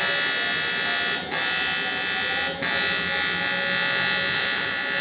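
AC TIG (argon) welding arc on aluminium, buzzing steadily, broken off for a split second twice and struck again.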